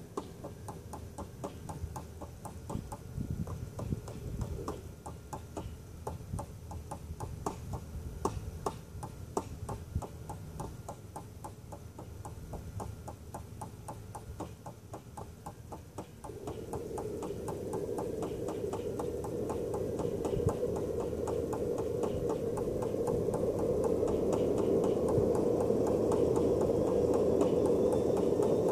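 JetCat PHT2 model helicopter turbine going through its start-up: a rapid, regular ticking for about the first half, then from a little past halfway a rushing sound that grows steadily louder as the turbine spools up, with a faint rising whine.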